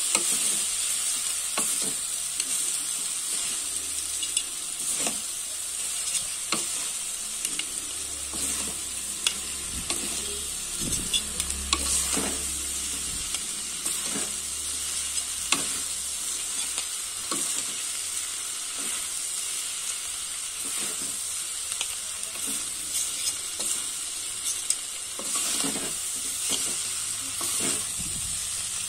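Noodles and vegetables sizzling as they are stir-fried in a steel kadai, with a metal spatula repeatedly scraping and clacking against the pan as they are tossed.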